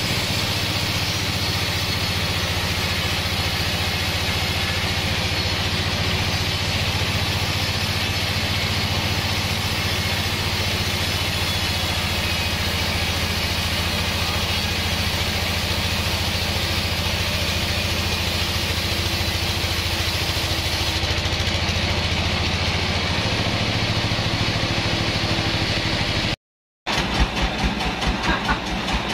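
Band sawmill running steadily: a low machine hum under the hiss of the blade cutting through a log. Near the end the sound stops abruptly for a moment, and a different, pulsing sound follows.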